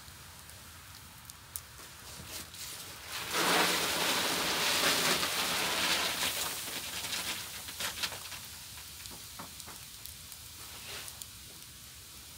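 A bushel of green peanuts poured from a mesh sack into a cane kettle of hot water, a dense rush of rattling and splashing. It builds about three seconds in, stays loud for several seconds, then tapers off.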